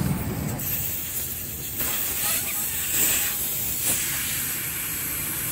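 Air hissing out through the valve of a Hero XPulse 200 4V's rear tyre as it is let down, starting about half a second in and coming in a few uneven spurts.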